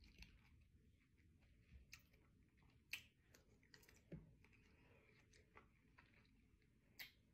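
Faint mouth sounds of a person eating cherries: a handful of soft, scattered clicks and smacks while chewing.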